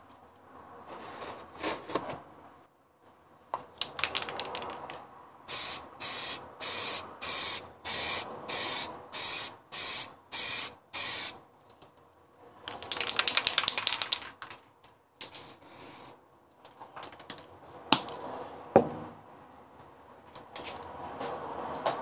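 Aerosol spray-paint can hissing in a quick run of about ten short bursts, then a longer spray and one more short burst, as grey paint goes onto plastic heater knobs. A couple of sharp knocks come near the end.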